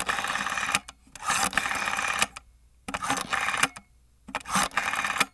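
Rasping, scratchy scraping noise in four bursts of about a second each, with short gaps between, then it stops abruptly.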